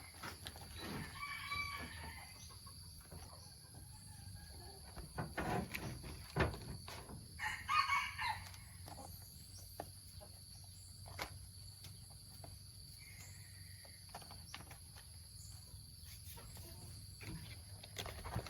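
A rooster crowing twice, about a second in and again about eight seconds in, with scattered knocks and clicks between and a steady high whine underneath.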